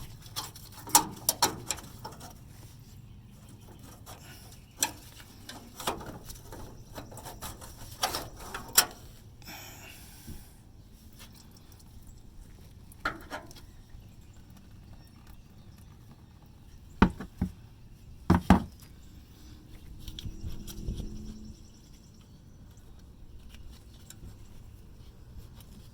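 Scattered sharp metallic clicks and knocks of hand tools and fuel-line fittings as the fuel filter's lines are disconnected and the filter is worked out, with long quiet gaps between them and a brief scraping rustle near the middle.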